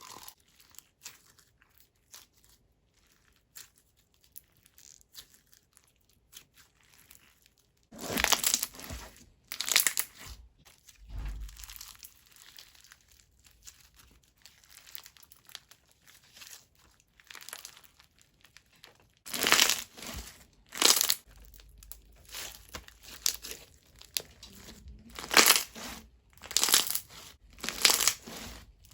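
Thick, bead-filled crunchy slime being squished and pressed by hand, crackling and crunching in repeated bursts. It is almost quiet for the first several seconds, then the crunches come every second or so.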